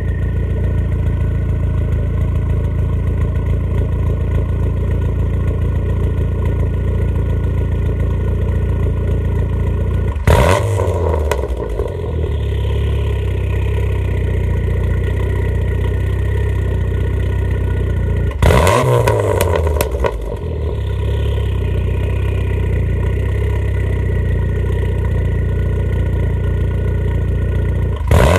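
Saab 9000 2.5-litre V6 heard at the tailpipe, idling steadily and blipped sharply twice, about ten and eighteen seconds in, and once more at the end, each rev falling quickly back to idle. The revs blow water out of the exhaust after a wash.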